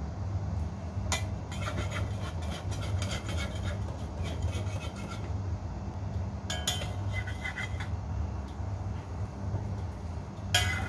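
Metal spatula scraping and clinking against a metal wok as it lifts and folds an omelet, in several short bouts, with one sharp clank near the end, over a steady low hum.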